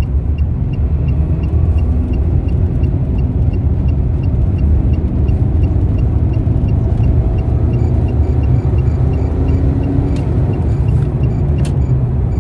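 Car cabin noise while driving: a steady low rumble of engine and tyres on the road. A regular faint ticking, about three times a second, runs near the start and again in the last third.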